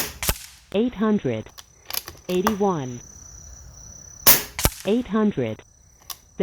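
Two shots from a .25 caliber Air Venturi Avenger PCP air rifle, regulated to 2500 psi, about four seconds apart. One comes at the start and one about four seconds in. Each sharp crack is followed about a third of a second later by a second click.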